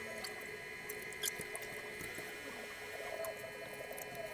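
Steady hum with several whining tones from a running homemade incubator, with scattered faint crackles of protective plastic film being peeled off its ACP cover panels.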